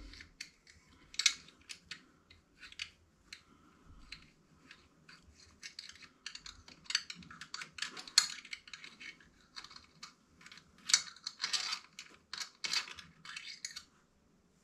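Small metal hook picks clicking and scraping against a bicycle frame tube at a cable hole, in an irregular patter of short clicks and scratches, while fishing an e-bike motor cable out of the frame.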